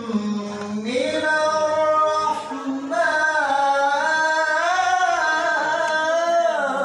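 A man reciting the Quran in melodic tilawah style through a handheld microphone: long held notes with wavering, ornamented pitch, a brief dip for breath just before the middle, then one long sustained phrase.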